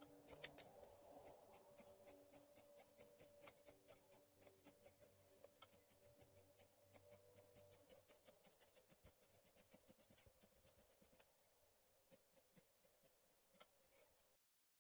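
Felt-tip marker drawing quick short lines on paper, about four strokes a second, thinning out after about eleven seconds and stopping abruptly near the end.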